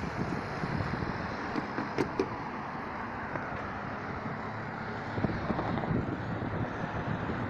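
Road traffic: cars driving by, a steady rush of tyres and engines, with a couple of sharp clicks about two seconds in.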